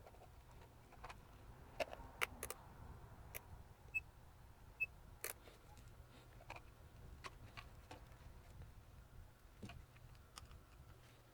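Scattered faint clicks and taps of small parts being handled on a workbench, with two short high pips a little under a second apart about four seconds in.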